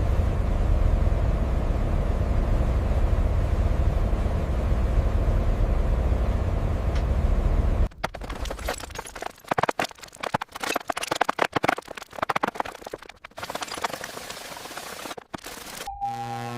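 A loud, steady deep rumble that cuts off abruptly about eight seconds in. It is followed by rapid, irregular sharp crackling.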